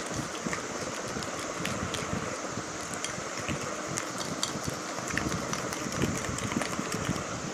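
Cake batter being mixed in a mixing bowl: a steady scraping, swishing noise with many small irregular clicks of the utensil against the bowl.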